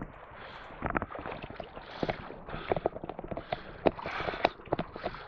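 Shallow sea water splashing and sloshing over a pebble beach, with irregular sharp clicks and splashes.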